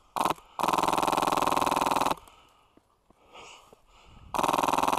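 Airsoft rifle firing full-auto bursts: a short burst, then a longer one of about a second and a half, and another starting near the end. Each burst is a fast, even rattle of shots.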